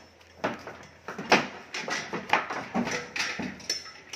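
Irregular knocks and thumps, about a dozen, as cattle shift and stamp inside a metal-sided livestock truck.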